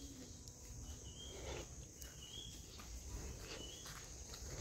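Faint outdoor farm ambience: a steady high-pitched insect drone, a short chirp repeating about once a second, and soft footsteps on a dirt path.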